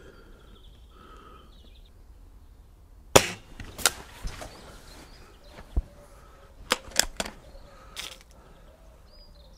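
Diana 240 break-barrel spring-piston air rifle fired once, a single sharp crack about three seconds in. Smaller clicks and knocks follow as the rifle is handled.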